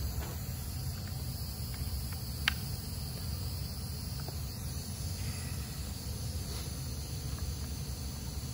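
Steady high hiss of compressed air slowly bleeding out of an FX Wildcat MK3 PCP air rifle's reservoir through its loosened pressure gauge, as the gun is degassed. A single sharp click about two and a half seconds in.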